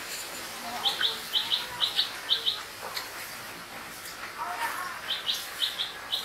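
Short, high chirps in quick pairs, about two pairs a second: one run starts about a second in, and a second run comes near the end. They are the calls of a small animal.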